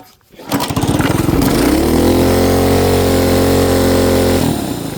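Small 212 cc single-cylinder engine revving up from idle to full throttle, holding high revs for about three seconds, then dropping back near the end, working hard to push the vehicle through snow on a sidewalk.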